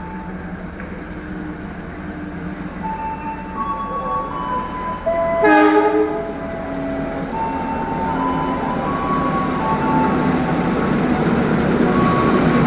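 Diesel train engine running with a steady note that shifts in pitch and grows louder toward the end. A short train horn blast sounds about five and a half seconds in.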